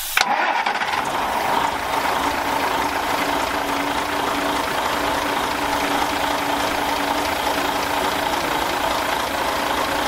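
Scania 141's V8 turbo diesel engine idling steadily, heard close up with the cab tilted open. It comes in suddenly just at the start.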